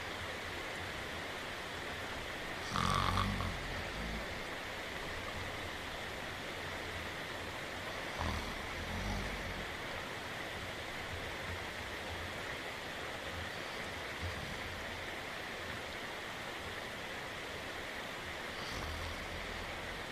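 Snoring over a steady hiss of rain. There is one louder snore about three seconds in, fainter snores around eight to nine seconds, and another near the end.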